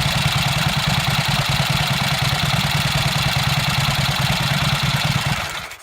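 Freshly rebuilt HRD Series A 1000 cc V-twin motorcycle engine idling with a steady, fast pulse; it fades out near the end.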